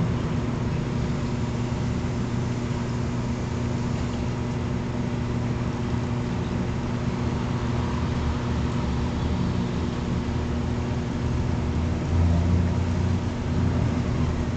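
Steady machine hum: a low, even drone under a constant hiss, swelling slightly in the low end about twelve seconds in.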